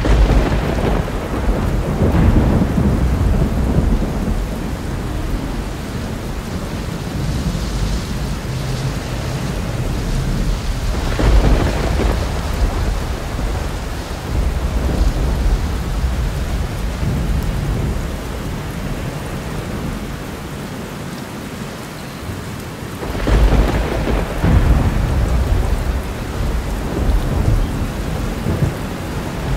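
Thunderstorm soundtrack of the AtmosFx Dripping Blood lightning effect: steady heavy rain with deep rolls of thunder at the start, about eleven seconds in, and again about twenty-three to twenty-six seconds in.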